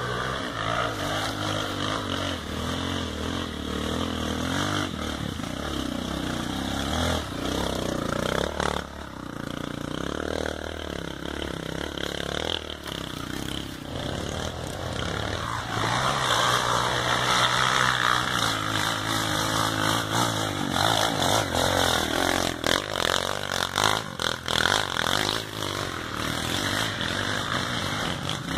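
Off-road dirt bike engine revving unevenly as it works up a dirt trail, growing louder about halfway through as it comes closer.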